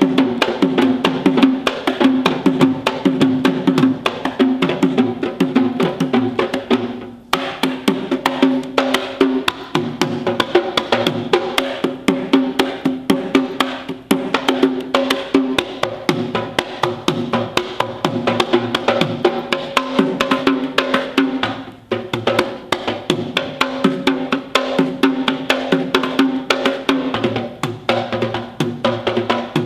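Traditional Sri Lankan drums played in a fast, dense rhythm of sharp strokes over ringing drum-head tones, with a few very short breaks.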